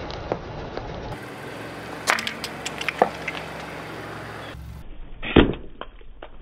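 A car tyre crushing things on asphalt: scattered sharp crackles and snaps, then one loud pop a little over five seconds in as a plastic ketchup bottle bursts under the tyre.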